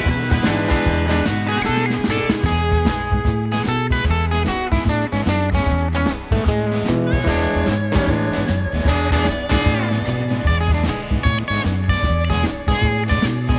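Live band playing an instrumental jam, guitar to the fore over bass and a steady beat, with no singing.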